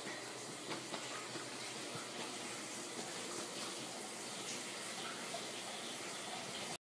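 Steady running water, with a few faint knocks, cutting off suddenly near the end.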